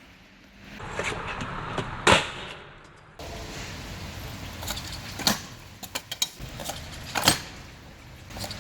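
Stunt scooter wheels rolling on wet asphalt, with sharp clacks of the scooter landing tricks. The loudest clacks come about two, five and seven seconds in, with a quick run of smaller clicks just before the last one.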